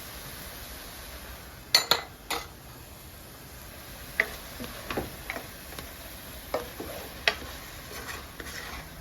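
A spoon stirring and knocking against a pot, with chopped onions, garlic and peppers sizzling in oil underneath. The knocks are scattered and sharp, loudest a couple of seconds in.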